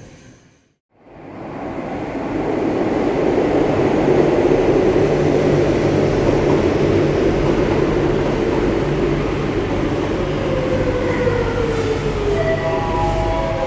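Madrid Metro Serie 8000 train running loud and steady after a brief gap about a second in. Near the end it slows, and its electric traction drive whines down in pitch with several steady tones.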